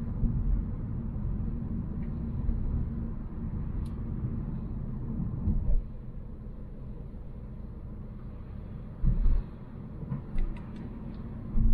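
Volvo C70 on the move, heard from the cabin: a steady low rumble of engine and tyres that gets quieter about six seconds in, with a few short low thumps near the end.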